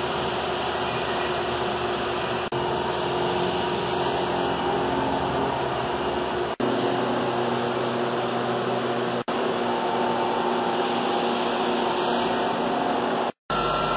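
Tsugami BS20BII CNC Swiss-type lathe running, a steady machine hum and whine with several held tones over a broad hiss. Short bursts of higher hiss come about four seconds in and again near the end.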